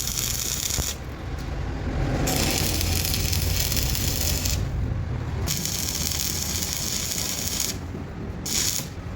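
Hissing in four bursts of about half a second to two seconds each, starting and stopping abruptly, over a steady low machine hum.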